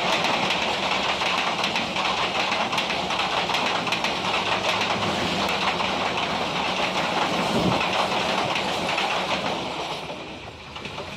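Passenger train passing close at speed, its wheels clattering over the rail joints in quick clicks. The noise falls away about ten seconds in as the last coach goes by.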